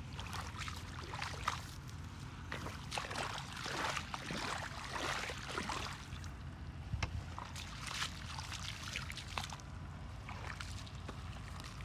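Bare feet wading and stirring in shallow muddy water: irregular splashing and sloshing, thinning out near the end.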